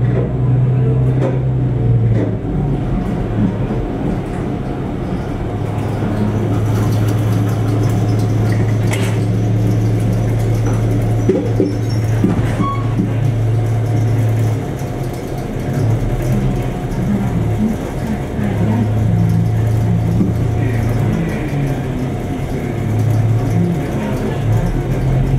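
Diesel engine of an ex-Meitetsu Kiha 8500 railcar running as the car creeps along the track, a low hum that swells and drops back several times. A few short knocks about nine and twelve seconds in, from the wheels over rail joints and points.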